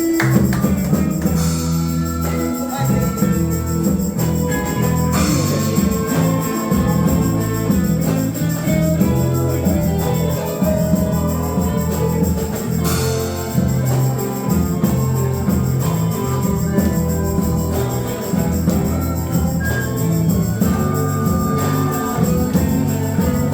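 Small live band playing a song: guitar and a bass line with a tambourine shaken in rhythm.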